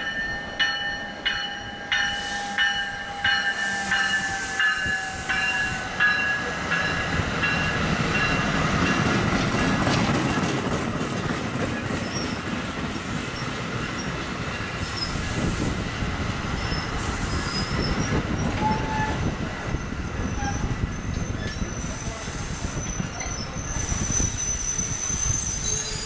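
NJ Transit double-deck Multilevel commuter train approaching and running past on the electrified line. For the first several seconds a bell-like ringing sounds about twice a second, then fades. The steady rumble of wheels on rail grows loudest about ten seconds in, and a thin high wheel squeal joins near the end.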